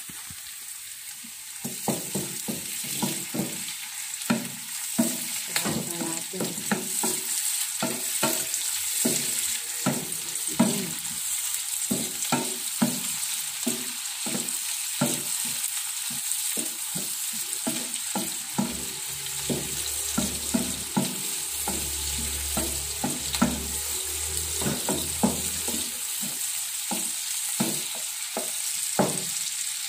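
Wooden spatula scraping and knocking against a nonstick frying pan while stirring chopped onion, tomato and browned meat, over a steady hiss of oil sizzling. The stirring picks up about a second and a half in and goes on in quick, irregular strokes.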